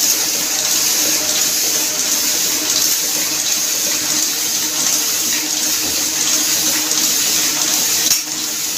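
Small sheet-fed offset printing press running: a steady whirring hiss, briefly quieter near the end.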